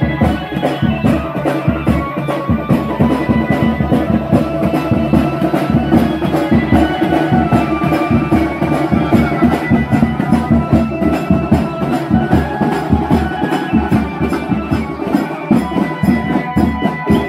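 Loud dance music for a wedding procession: a fast, steady drumbeat under held melodic tones, with no break.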